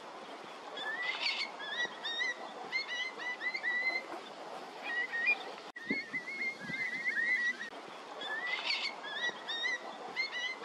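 Far Eastern curlews calling in flight: a run of short, rising, hooked whistles repeated several times a second, with several birds overlapping, over a steady background hiss.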